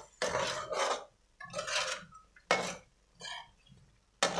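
A steel ladle scraping and stirring chicken pieces around an aluminium karahi, in about four separate strokes with short pauses between them.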